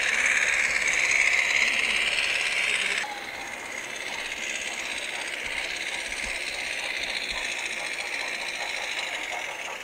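Large-scale model track-maintenance car running along garden-railway track, its running noise under a steady hiss. The hiss is louder for the first three seconds, then drops abruptly.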